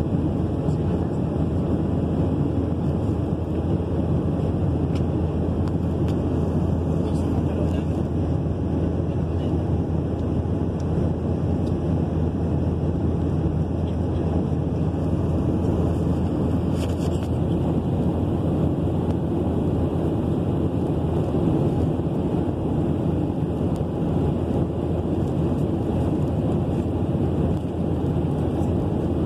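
Steady, deep, even cabin noise of a jet airliner in cruise flight: engine and airflow noise heard from inside the cabin at a window seat.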